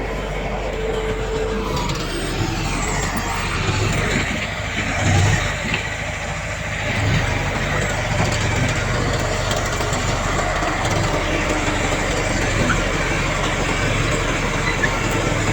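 Heavy diesel earthmoving machinery, bulldozer and dump truck engines, running steadily under load, with a short swell in loudness about five seconds in.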